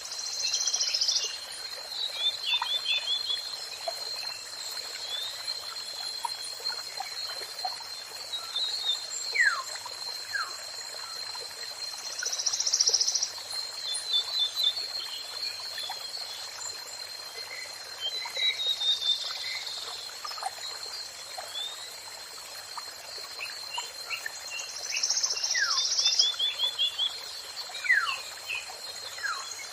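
Songbird calls: short chirp trills and quick falling whistled notes, over a steady high-pitched tone and a constant hiss. The same pattern of calls comes round about every twelve seconds, as in a looped bird-training recording.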